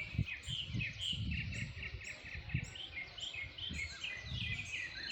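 Several birds chirping and singing together in the early morning, a steady stream of short, quickly repeated high notes from more than one bird, over a low background rumble.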